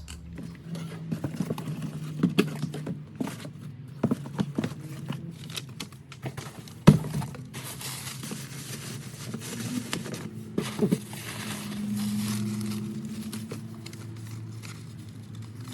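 Handling noise from parts being boxed up: rustling, scattered clicks and knocks, and one sharp knock about seven seconds in, over a steady low hum.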